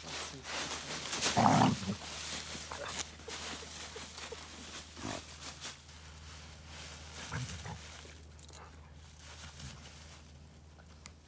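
Dogs playing in a thick layer of dry fallen leaves: the leaves rustle and scatter under their paws and muzzles. A short dog growl about one and a half seconds in is the loudest sound.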